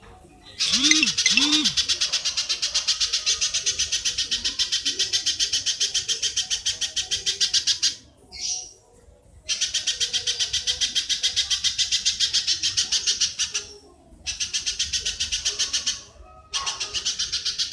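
Recorded animal call played back as a lure: a fast, rattling chatter in four bursts, the first about seven seconds long and the others shorter, with two low hooting notes about a second in.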